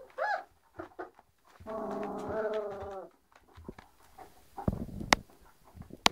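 Newborn Great Dane puppies, about two weeks old, whimpering: short rising-and-falling squeaks, then one drawn-out whining cry lasting about a second and a half. A few sharp knocks come near the end.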